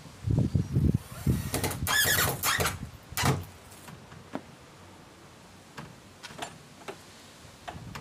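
Metal gate bolt and latch hardware being worked on a new timber gate: a squealing, scraping metal sound for about a second and a half, then a sharp click and a few lighter clicks. Wind buffets the microphone with low rumbles near the start.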